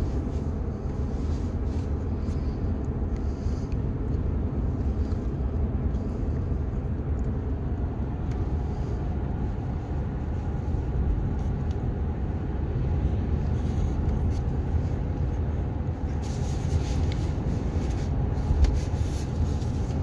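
Steady engine and road noise inside a Toyota's cabin while it drives along at speed, a low even rumble with no change in pace.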